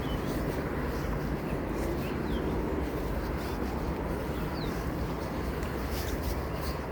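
Steady outdoor rumble of noise with a few faint, short, falling chirps from a small bird scattered through it.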